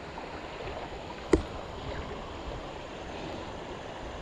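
Steady rush of flowing stream water, with one sharp knock about a second in.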